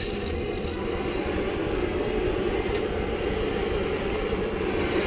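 Hand-held gas torch flame burning steadily, a continuous rushing noise with no breaks, as it heats a steel post.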